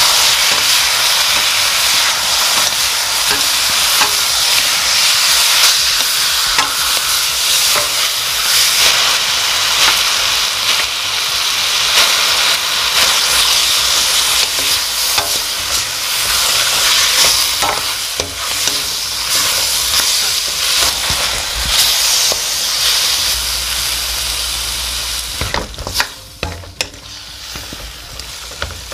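Zucchini, onion and chillies sizzling loudly in an oiled wok as a wooden spatula stirs and tosses them. Near the end the sizzle falls away and a few sharp clicks stand out.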